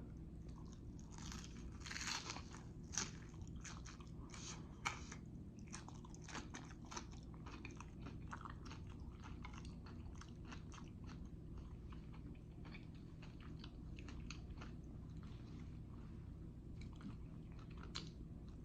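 Close-miked chewing of jalapeño poppers: a steady run of small crunches and crackles, with a few sharper bites in the first five seconds.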